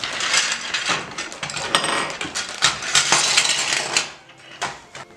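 A clear plastic bag crinkling as small hard-plastic dough tools are tipped out of it, the pieces clattering onto a wooden tabletop. The clatter dies down about four seconds in, leaving a few last clicks as the pieces are set out.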